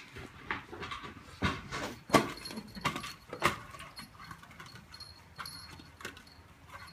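A beagle chewing and batting an empty plastic Coke bottle on a tile floor: irregular plastic crackles, clicks and knocks, the loudest in the first three or four seconds, then lighter ticks.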